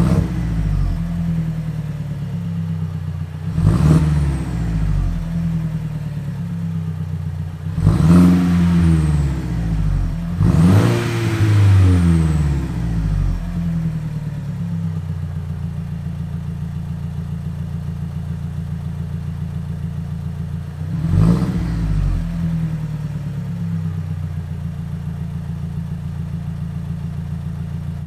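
Alfa Romeo 159 TBi's turbocharged four-cylinder petrol engine idling through a Wizard straight-through rear exhaust section with no silencers, blipped on the throttle and falling back to idle each time. The revs come right at the start, about four and eight seconds in, twice close together around ten to twelve seconds in, and once more about twenty-one seconds in.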